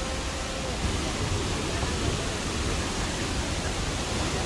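Steady rushing of La Fortuna waterfall, an even wash of falling-water noise with faint voices under it.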